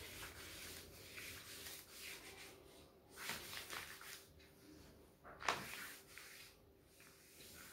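Cloth rubbing over a chalkboard, wiping chalk off in a series of faint swishing strokes, with one sharper stroke about five and a half seconds in.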